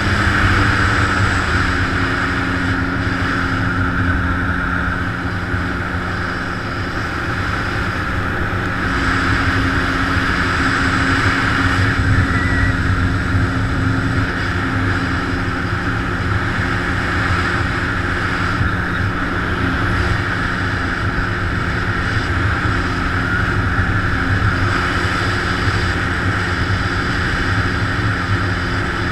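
Jet ski engine running steadily at cruising speed, with water rushing off the hull. The engine eases slightly about six seconds in and picks back up around nine seconds.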